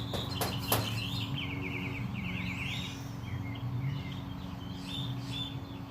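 Small birds chirping in the background, with a fast run of repeated descending chirps from about one to three seconds in, over a steady low hum. Two short clicks in the first second.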